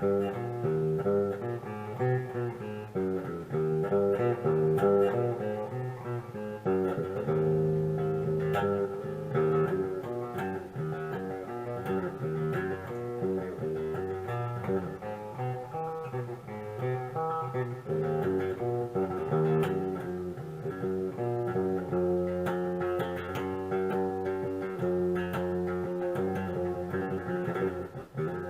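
Electric guitar played clean through an amp, picking single notes and chords in a twangy, Telecaster-like tone from the back coil of a split bridge humbucker.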